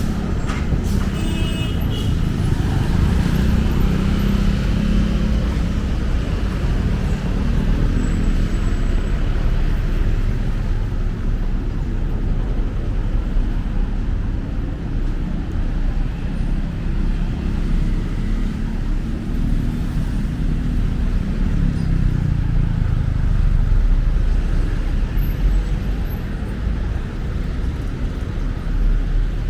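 City street traffic: engines of passing cars and other road vehicles rumbling steadily, swelling and fading as vehicles go by, with a short high-pitched sound about a second in.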